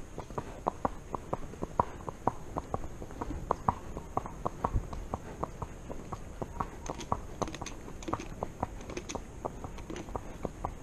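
A horse's hooves clopping on an asphalt road, in a steady, even rhythm of about four strikes a second.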